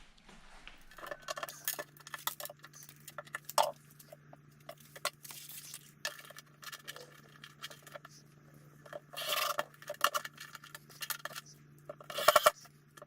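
Small metal hardware, screws and hinge fittings, clinking, rattling and scraping as it is handled, with denser bursts of clatter near the end. Under it runs a faint steady hum.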